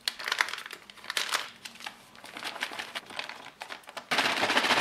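Plastic MRE drink pouch crinkling as its zipper is pressed shut. About four seconds in, a sudden dense, steady rustle starts as the pouch is shaken hard to mix the strawberry shake powder with water.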